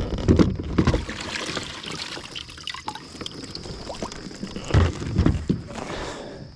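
Water splashing and sloshing at a kayak, with two clusters of dull knocks, one early and one around five seconds in.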